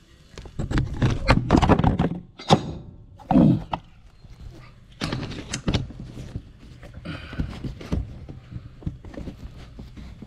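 Metal jackhammer parts knocking and clattering as they are handled and cleaned, with a run of dense knocks in the first few seconds and sparser ones after. A steady low hum starts about four seconds in.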